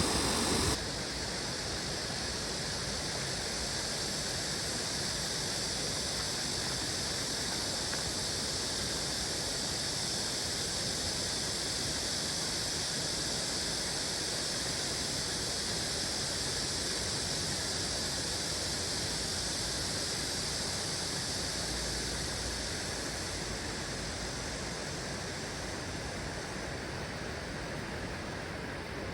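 Stream water flowing, a steady rushing hiss that eases slightly near the end.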